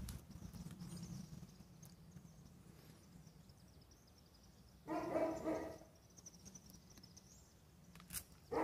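A dog barking: one bark of under a second about five seconds in, and another starting right at the end.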